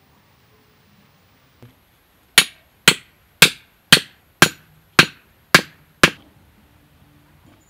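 An axe head used as a hammer, striking the top of a wooden stake to drive it into the ground: a light tap, then eight sharp blows at about two a second.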